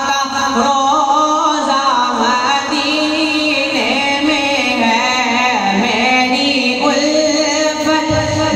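A boy's solo voice singing a naat, a melodic Urdu devotional song, through a microphone, holding and bending long notes.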